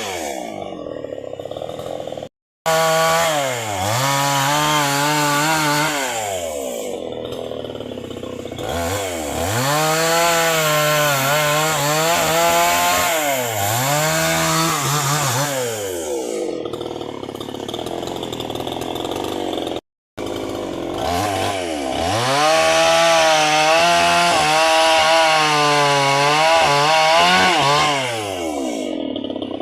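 Two-stroke chainsaw running at full throttle, its engine pitch repeatedly dipping and climbing back as it works through the wood. It cuts out completely twice for a split second.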